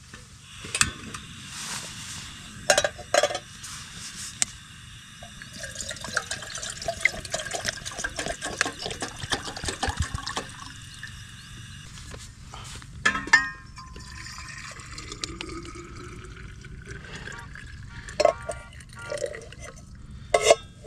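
Water poured into a small camping pot for heating, a stretch of pouring near the middle, with scattered knocks and clinks as the pot and bottle are handled.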